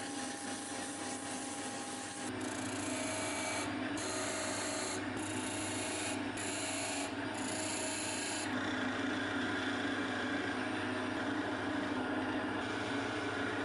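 Small benchtop wood lathe running with a steady hum while the spinning beech chisel handle is sanded and worked with hand tools, a dry rubbing and scraping on the wood. The rubbing changes character abruptly about two seconds in and again about eight seconds in.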